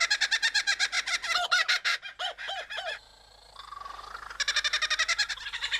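Kookaburra-style laughing call: fast runs of loud, harsh repeated notes that break off about three seconds in and start again near the end.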